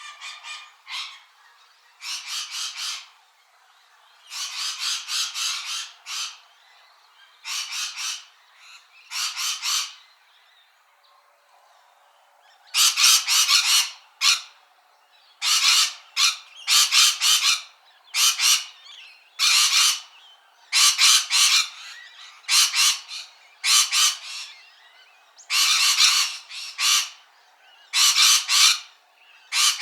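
Parrot giving repeated harsh squawks in short bouts, with a pause of about two seconds near the middle, after which the squawks come more often.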